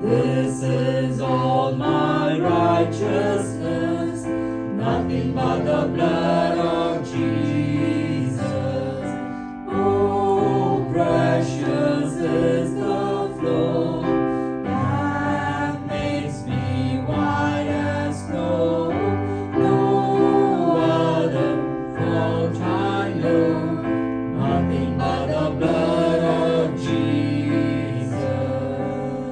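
A choir singing a gospel hymn over sustained instrumental accompaniment, with the music starting to fade near the end.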